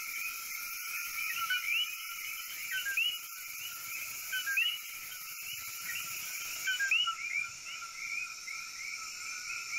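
Chorus of male coquí frogs calling, many overlapping two-note "ko-kee" calls, each a short low note followed by a higher rising one. A steady high hiss runs underneath.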